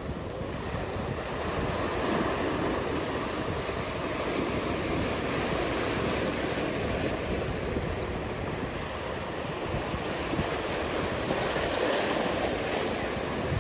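Ocean surf breaking and washing in a steady rush that swells and eases, with wind rumbling on the microphone.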